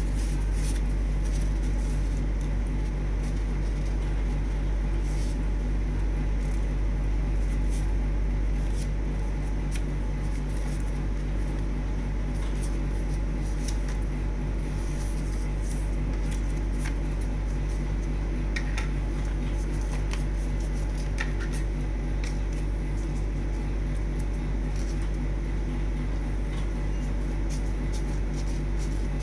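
A steady low electrical hum. Over it, paper rustles and crinkles in scattered soft clicks as a sheet is folded and creased by hand, and scissors snip through the folded paper near the end.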